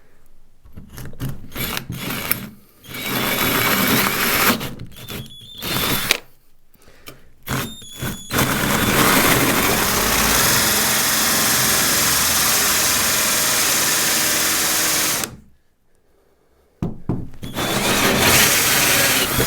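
Power drill with a 54 mm hole saw boring the doorknob hole through an internal door, started and stopped in short bursts at first, then running steadily for about seven seconds, pausing, and cutting again near the end as it breaks all the way through.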